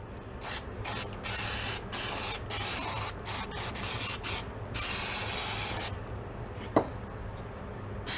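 Aerosol spray can hissing in a series of short bursts, then one longer spray of about a second, stopping about six seconds in. A single sharp click follows a little before seven seconds.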